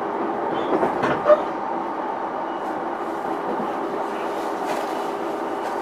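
Cabin running noise of a JR East E233-1000 series electric train, heard inside motor car MoHa E233-1005: a steady rumble with a steady electrical hum and a few short clicks from the wheels about a second in.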